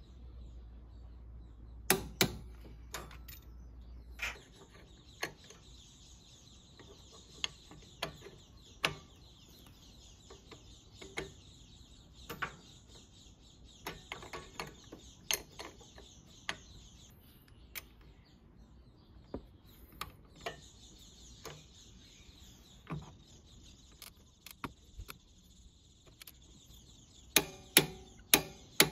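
Hand tools working on a scooter's CVT: a socket and torque wrench on the pulley nuts, and a pulley holder tool against the variator, giving scattered sharp metal clicks and clacks. There are two loud clicks about two seconds in and a quick run of loud clicks near the end. A steady high-pitched hiss sits underneath for much of the time.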